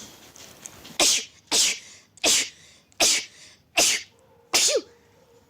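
A girl sneezing six times in quick succession, about one sneeze every three-quarters of a second, a rapid sneezing fit.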